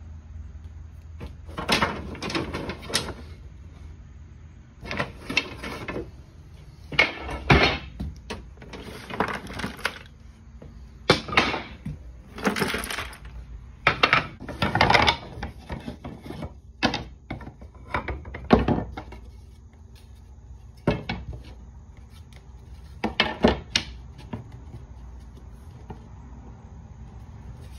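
Wooden scrap pieces knocking and clattering against each other as they are picked through and set down, in irregular bursts every second or two, dying away over the last few seconds.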